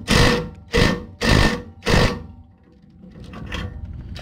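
Cordless impact driver hammering on a rusted underbody bolt in five short bursts over about two seconds, then a quieter rattle. The driver is set to the tightening direction, so the bolt is being driven tighter rather than coming loose.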